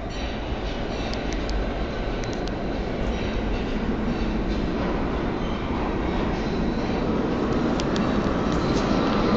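New York City Subway R46 train approaching and pulling into an underground station, its rumble growing steadily louder. A few brief sharp clicks come about two seconds in and again near the end.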